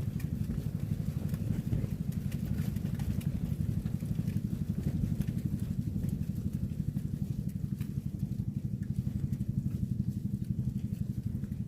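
A small engine running steadily, a low, fast putter that holds an even pace throughout.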